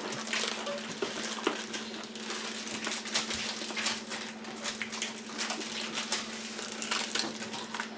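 Plastic wrappers of peanut brittle bars crinkling and crackling in quick, irregular bursts of sound as the bars are unwrapped and handled, over a steady low hum.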